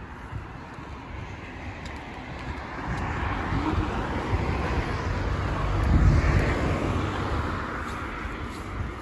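A road vehicle passing close by: its noise swells over a few seconds, peaks about six seconds in and then fades, over a low steady rumble.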